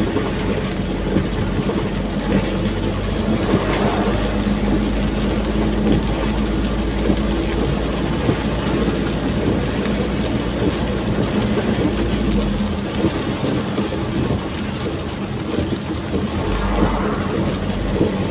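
Diesel truck engine running steadily under way, heard inside the cab, over the hiss of heavy rain and tyres on a wet road.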